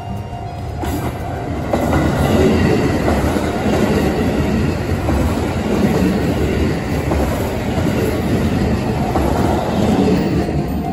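KiHa 85 series diesel limited-express train passing close by at speed, its engines and wheels on the rails making a loud rush of noise. The noise builds over the first two seconds as the train draws near and stays loud while the cars go past.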